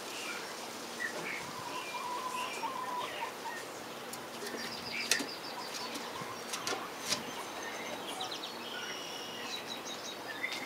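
Soft bird chirps and short trilled calls from the chicken flock, with a few sharp clicks.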